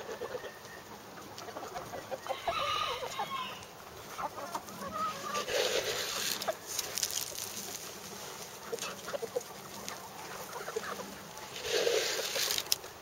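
Flock of North Holland Blue chickens clucking, with many short calls and a few louder ones about three, six and twelve seconds in.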